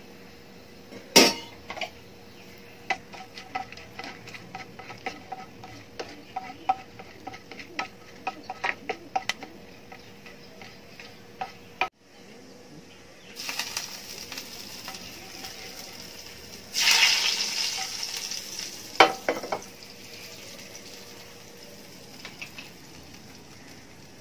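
Whole spices frying in hot oil in a nonstick pan: a loud clatter about a second in, then many small clicks and pops of the spices and a spatula against the pan. After a break, a sizzle starts and turns loud about 17 s in as the hot spiced oil tempering hits the curry, with a sharp knock of metal on metal about two seconds later.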